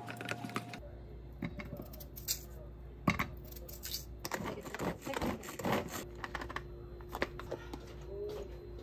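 A kitchen knife cutting a raw potato in hand, with pieces dropping into a plastic chopper bowl: a scatter of short clicks and knocks. For the first moment, a spatula stirring pancake batter in a stainless steel bowl.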